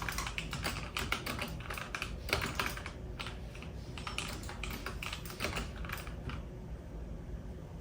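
Typing on a computer keyboard: a fast run of keystroke clicks, thinning out to a few scattered keystrokes about six seconds in.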